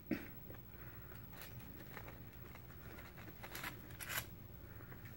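Faint eating sounds from a vegetarian taco: a few short, soft crackles and rustles, two of them close together about three and a half to four seconds in.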